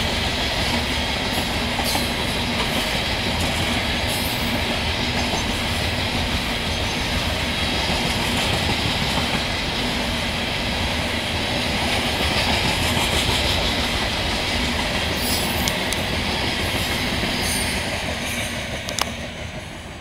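CSX coal train's steel-wheeled hopper cars rolling past: a steady rumble and clickety-clack of wheels on rail, with a sharp click about a second before the end as the sound starts to fade.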